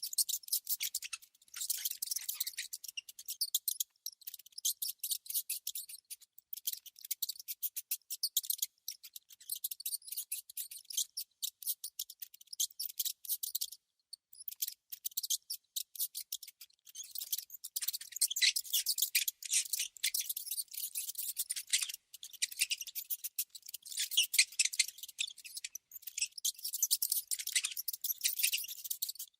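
Rats or mice making rapid, high-pitched clicking and scratching sounds in uneven bursts, with short pauses, one of them about halfway through.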